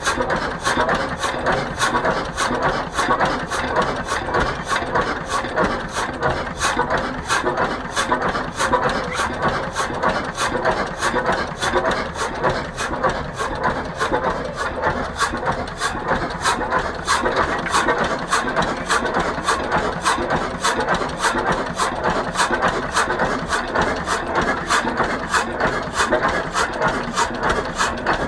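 1925 Hein 18 hp single-cylinder marine hot bulb engine running slowly, with a steady, even knocking beat of about three strokes a second.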